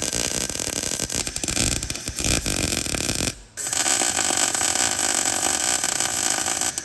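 MIG welder arc crackling and sputtering as beads are run on thin car-body sheet metal, in two long runs with a short break about three and a half seconds in.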